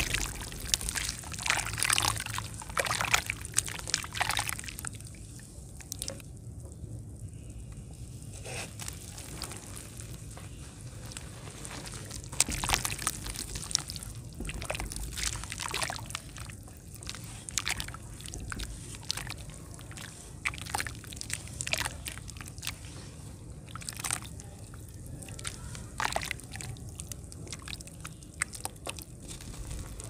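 Hands crumbling dry powdery lumps into a basin of water and squeezing the wet slurry: irregular crumbling crunches mixed with sloshing and squelching of muddy water, busiest in the first few seconds and again about twelve seconds in.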